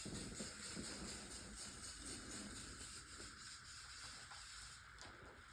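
Faint steady hiss of a Lysol aerosol disinfectant spray being sprayed into the room, stopping near the end.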